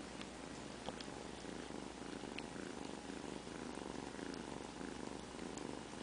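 Kitten purring steadily, a continuous pulsing rumble recorded close up, with a few faint clicks.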